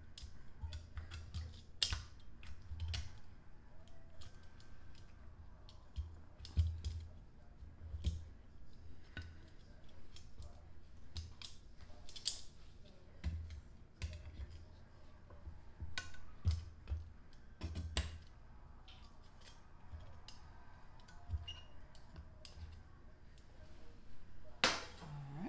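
Metal kitchen tongs clicking and clacking at irregular intervals, with dull thumps, as pork spare ribs are turned over in a glass baking dish.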